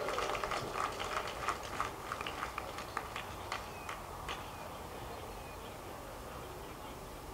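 Scattered clapping from a small outdoor crowd, thinning out and dying away about four and a half seconds in.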